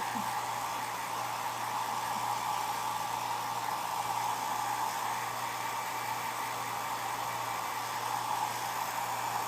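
Handheld hair dryer blowing steadily, an even rush of air over a low motor hum.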